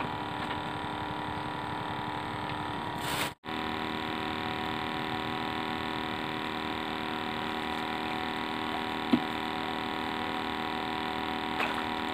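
Steady hum made up of several held tones. It drops out briefly a little over three seconds in, and there is a single sharp click about nine seconds in.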